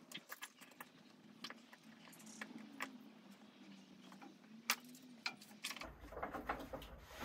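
Faint scattered clicks and taps of a plastic glue bottle and an aluminium foil tray as PVA glue is poured into the tray and mixed, with one sharper tap a little before five seconds in and busier handling noise near the end.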